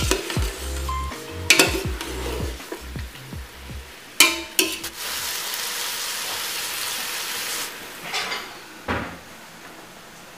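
Pork ribs sizzling in a metal stockpot as they are stirred, with the spatula knocking and scraping against the pot a few times, then a steady sizzle for a few seconds. A couple of softer knocks near the end.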